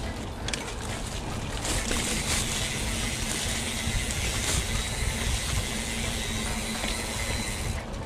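Mountain bike rolling along a dirt trail: wind buffeting the camera microphone with a low rumble, tyres running over the dirt, and a louder swishing hiss of tall grass brushing the bike from about two seconds in until near the end, with a few sharp clicks.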